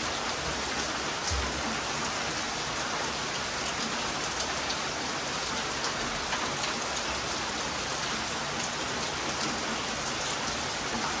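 Heavy rain falling steadily, a dense hiss of rain on surfaces with individual drops ticking through it, and one brief low bump about a second and a half in.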